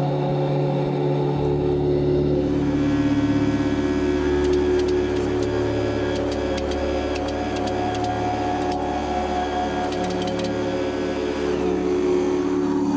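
Hydraulic forging press running, its motor and pump humming steadily, with a scatter of light ticks from about four seconds in as the hot 1095/15N20 Damascus blade is squeezed between the dies; background music underneath.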